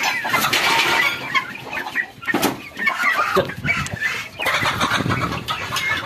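Chickens calling in short, irregular bursts, with a chicken flapping its wings as it is driven out.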